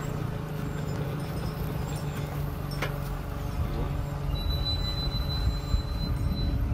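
Nissan March hatchback's engine idling steadily, a low even hum.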